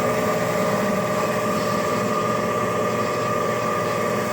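Lian Feng LF-12A automatic band saw, with its 2 hp three-phase motor, running steadily just after being switched on: a constant hum with a steady whine over it.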